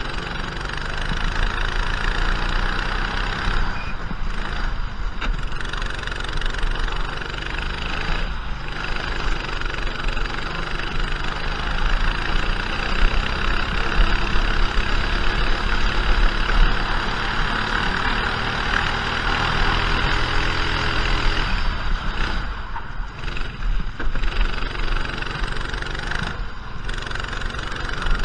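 Racing kart engine running hard through a lap, its revs rising along the straights and falling away in several short dips where the driver lifts for corners, with wind and road noise on the onboard microphone.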